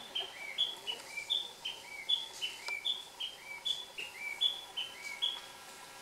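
Male Narcissus Flycatcher singing: a clear whistled two-note phrase, a high note followed by a lower one, repeated about once every three-quarters of a second and stopping about five seconds in.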